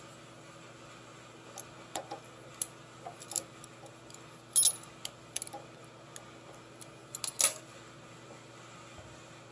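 Scattered metallic clicks and clinks of a hex key and small wrench being handled and fitted into a milling machine's right-angle head, loudest about four and a half seconds in and again near seven and a half seconds, over a faint steady hum.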